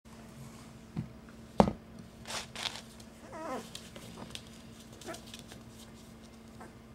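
A four-week-old puppy gives a short, wavering whimper about halfway through. Before it come a sharp thump and a smaller knock, and a few light clicks follow, over a steady low hum.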